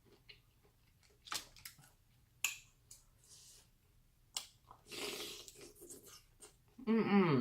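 Close-up eating sounds of a person chewing seafood: wet mouth clicks and smacks, a breathy hiss about five seconds in, then a short hummed 'mmm' near the end, the loudest sound.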